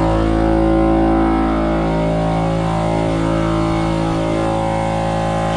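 Pancake air compressor running steadily, its motor and pump filling the tank.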